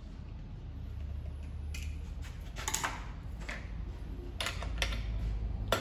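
A few scattered clicks and clinks of hand tools on metal, over a low steady hum.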